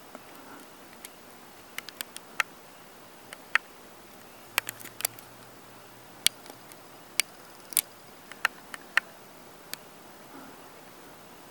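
Scattered sharp clicks at irregular intervals, over a steady faint hiss.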